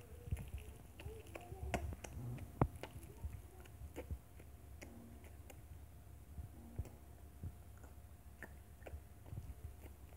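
Close-up eating sounds of a wrapped chocolate candy: scattered sharp clicks, lip smacks and chewing while the foil wrapper is handled at the mouth, with a little low humming murmur.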